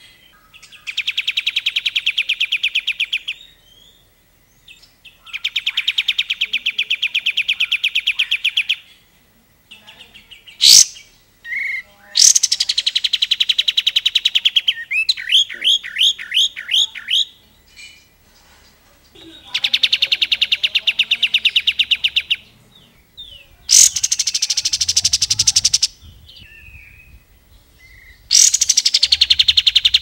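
Caged olive-winged bulbul (kapas tembak) singing in repeated bursts of fast trilled chatter, each burst two to three seconds long with short pauses between. A single sharp, loud note comes partway through.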